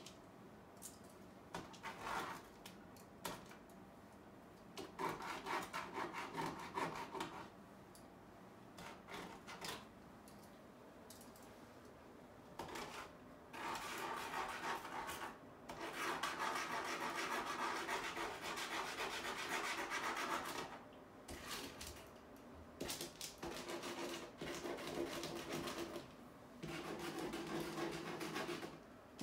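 Paint marker rubbing and scratching across the surface of a wall painting in spells of quick back-and-forth strokes, each a few seconds long, with short pauses between; the longest spell comes about midway.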